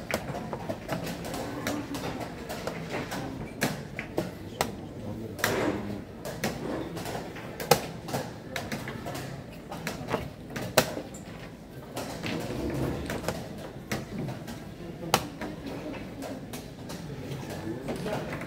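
Rapid, irregular clicks and knocks of plastic chess pieces set down on a board and of chess clock buttons being pressed in a blitz time scramble, over a murmur of voices.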